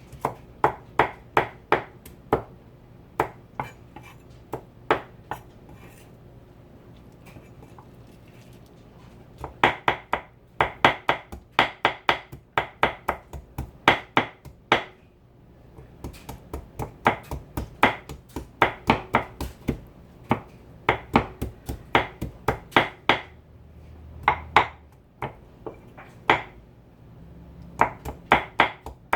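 Knife chopping on a cutting board, sharp strokes at about three a second, coming in runs with a few seconds' pause near the start.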